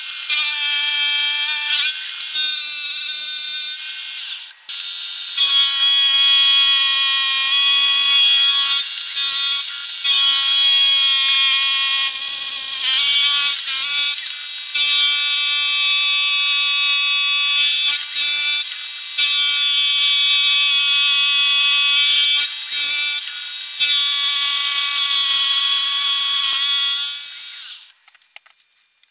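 End mill on a milling machine cutting a metal block: a loud, high-pitched whine made of several steady tones, dropping out briefly about four and a half seconds in and stopping just before the end.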